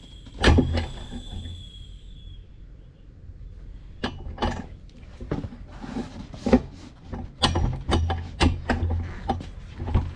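Irregular metal clanks and knocks from working a car tire on a manual tire changer to break the bead and get at the tire pressure sensor inside.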